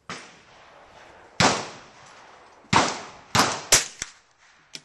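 Gunshots on an outdoor firing range: six sharp reports at irregular intervals, each with a short ringing tail, some less than half a second apart, too close together for one bolt-action rifle, so several guns are firing.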